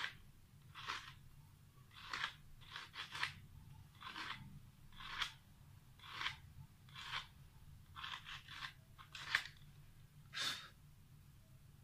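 Sandpaper rubbed in short strokes over the copper commutator of a small water purifier pump motor's armature, cleaning it. There are about a dozen dry rasping strokes, roughly one a second, some coming in quick pairs.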